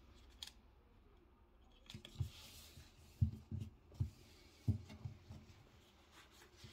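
Quiet handling noise from a polyester football shirt being moved about: a soft rustle of fabric about two seconds in, then several soft low thumps over the next few seconds.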